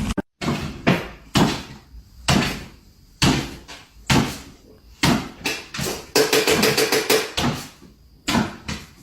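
A series of about ten sharp knocks or bangs at irregular intervals, roughly one a second, each dying away quickly.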